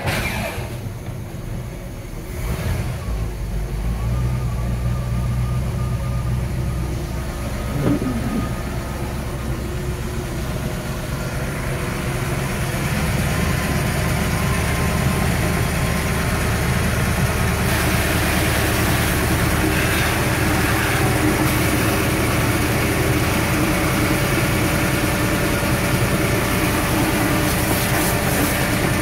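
Chris-Craft 305 V8 marine engine firing up and running at a steady idle on a test run, heard close up in the engine compartment. From about twelve seconds in, a hiss of water from a garden hose splashing into the bucket that feeds the engine's cooling-water intake joins the engine.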